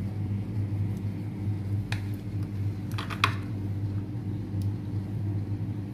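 A knife blade tapping and clinking lightly against a ceramic plate while slicing a soft cake: a few short clicks, the clearest about three seconds in. A steady low hum runs underneath.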